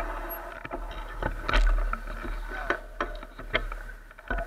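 Rattling and irregular sharp knocks from a mounted action camera jolting over a rough dirt trail, over a steady rumble of wind on the microphone.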